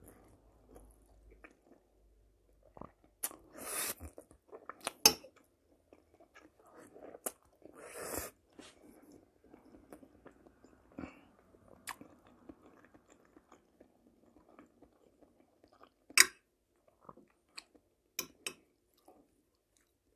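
Close-up chewing of spaghetti and fried mushrooms, soft and wet. Two short hissing sounds come about four and eight seconds in, and a few sharp clicks, the loudest about five and sixteen seconds in.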